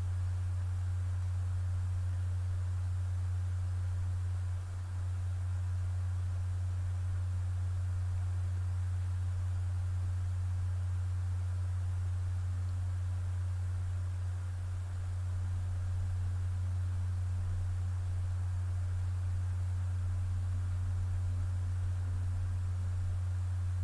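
A steady low hum, one loud unchanging tone.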